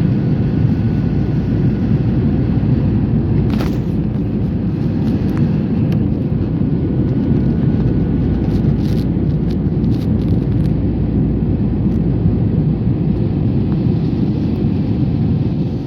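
Steady low rumble of an airliner's engines and airflow heard from inside the passenger cabin. A few faint clicks come about four seconds in and again around nine to ten seconds.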